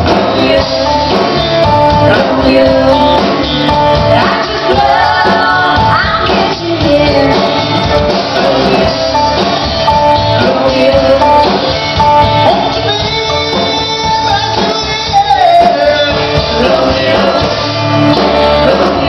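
Live band performing a song: a man and a woman singing a duet into microphones over electric bass, acoustic guitar and fiddle, with a steady beat.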